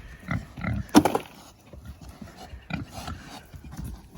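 Pigs grunting in short, irregular bursts, as when eating, with one louder, sharper sound about a second in.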